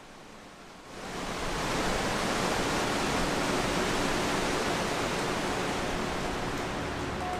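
El Estrecho waterfall: the steady rush of falling water fades in about a second in and then holds.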